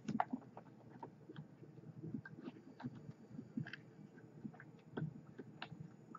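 Faint, irregular small clicks and ticks of a hand tool and 22 gauge nichrome coil wire being handled against a rebuildable atomizer deck.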